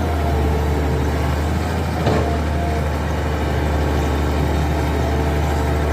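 Heavy diesel engine running steadily with a deep rumble while sand is loaded, with a brief sharp clatter about two seconds in.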